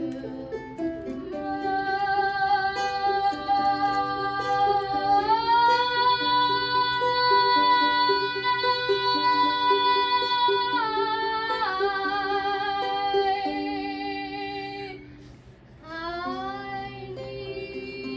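Girls singing with a strummed ukulele accompaniment: one long high note held with vibrato, stepping up in pitch about five seconds in and back down around eleven seconds, then after a short break a new phrase starts with a sliding rise.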